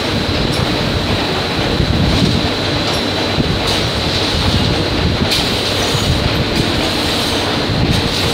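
Loud, steady factory machinery noise with a thin high whine running through it and a few short clacks.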